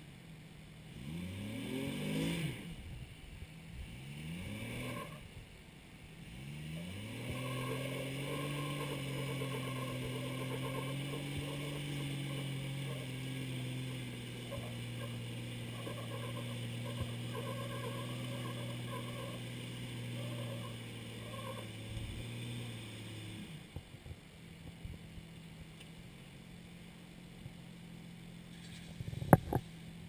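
Jeep engine revving in two short rising bursts, then pulling steadily under load for about fifteen seconds as it crawls up a rock ledge, before dropping back to idle. A single sharp knock sounds near the end.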